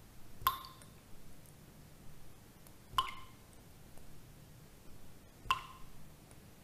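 Water droplets dripping into water: a single ringing plink every two and a half seconds, three in all, over a faint low steady hum.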